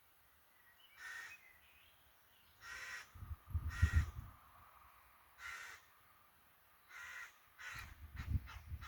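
Crows cawing: a string of short caws a second or so apart, coming quicker near the end. Low thuds are heard around the middle and near the end.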